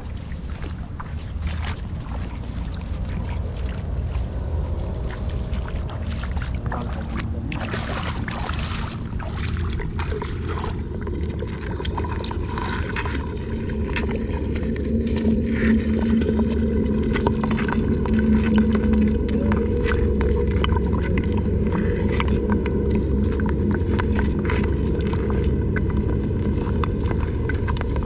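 Water sloshing and gurgling heard with the microphone in or at the water: a muffled low rumble with many small clicks, growing fuller about ten seconds in.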